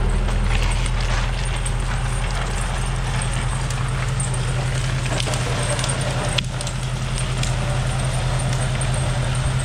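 John Deere 1640 diesel tractor engine running at a steady working speed as it drags a felled cedar tree over snow, with crackling and crunching from the branches and brush along the ground.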